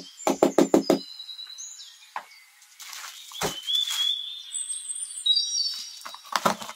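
Hand unboxing noises: a quick run of sharp clicks in the first second, then a box-cutter blade slitting packing tape on a cardboard box, with thin high squeaks and a few knocks.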